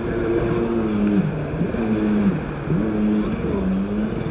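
Jet ski engine revving, its pitch repeatedly dropping and climbing back about once a second as the throttle comes off and on.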